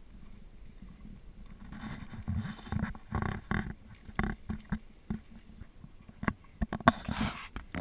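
Footsteps on a dirt and rocky trail: uneven scuffs and knocks of boots on the path, with rustling of clothes and backpacks.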